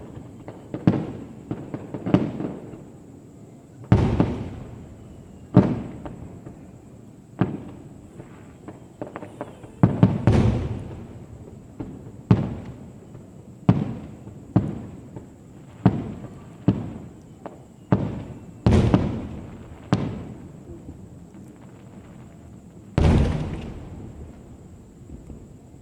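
Fireworks bursting overhead: sharp bangs every second or two, each trailing off in a rolling echo, with a longer, heavier burst near the end.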